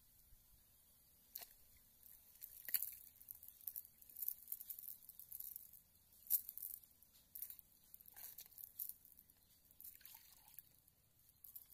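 Wet cast net being gathered and lifted out of shallow pond water: quiet, irregular drips and small splashes of water running off the mesh.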